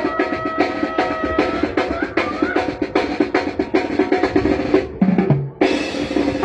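Tamborazo band playing live: tambora bass drum and snare drive a fast beat under saxophones holding notes, with a short drum break near the end.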